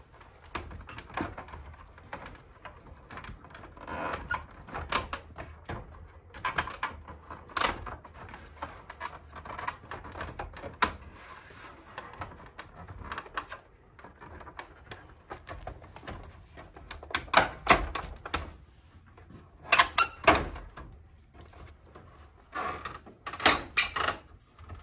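Plastic cover panel of a ductless mini-split head unit being pried and worked loose: irregular clicks, creaks and knocks of plastic clips and panel edges. It grows louder in the second half, with short clusters of clatter.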